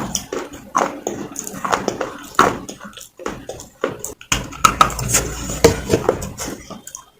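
Close-up crunching and chewing of soft baked clay: irregular crunches and mouth clicks, several a second, with a brief pause a little after halfway.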